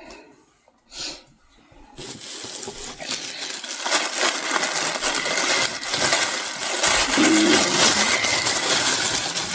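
Plastic packaging crinkling and rustling continuously as clothes are pulled from their bags, starting about two seconds in.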